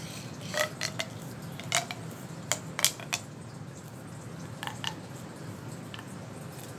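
Plastic fidget toy being handled, giving a series of sharp clicks and taps, about nine at uneven intervals, most of them in the first three seconds.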